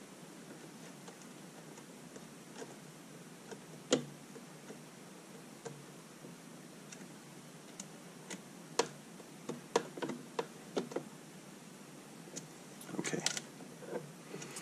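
Scattered light clicks and taps from 3 mm bolts being tightened by hand with a bare screwdriver bit into the rail of an acrylic lid. There is one sharper click about four seconds in and a quick run of clicks around ten seconds in.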